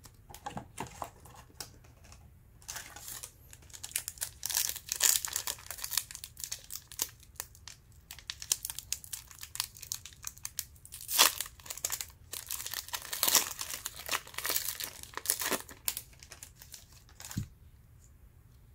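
Wrapper of a Panini Hoops basketball card pack being crinkled and torn open, a long run of irregular crackles, then a single sharp tap near the end.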